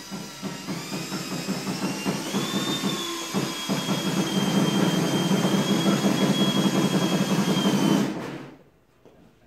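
Power drill running for about eight seconds, its whine climbing in pitch over the first couple of seconds and then holding steady over a rough grinding as it works into the wood, then stopping.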